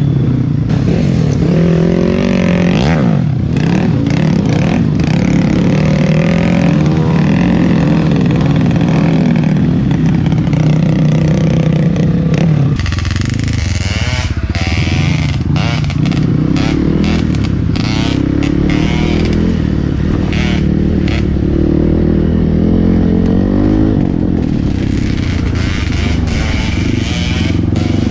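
Trail motorcycle engine running under load over rough ground, its revs rising and falling, with a clatter of knocks about halfway through.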